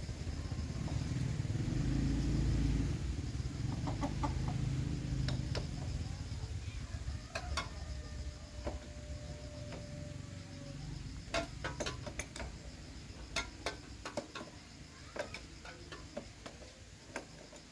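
A small engine running with a low rumble that dies away over the first ten seconds or so, followed by scattered light metallic clicks and taps.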